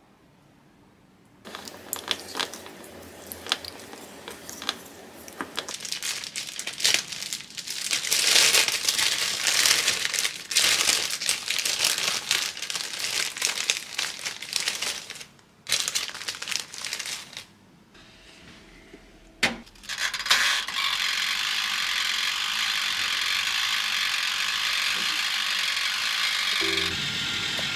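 Plastic bread bag crinkling, with clicks and rustles, as slices of bread are handled. After a sharp click about twenty seconds in, a toaster oven runs with a steady hiss.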